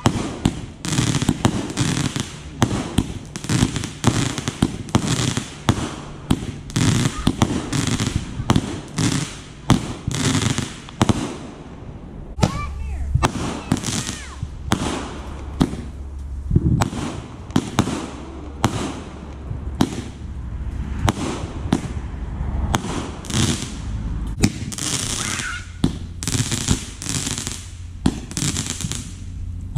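Aerial fireworks going off in a rapid, continuous string of sharp bangs and crackles, several reports a second, with launches and bursts overlapping.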